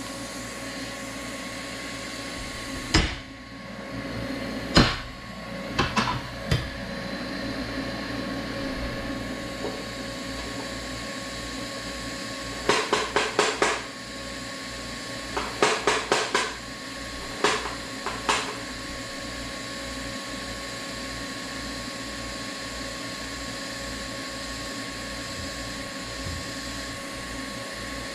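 TIG torch tapped against the steel workpiece in tries to strike the arc: sharp metallic ticks, then two short runs of rapid taps a few seconds apart, over the welder's steady hum. The arc is not starting properly, so little or no weld is laid.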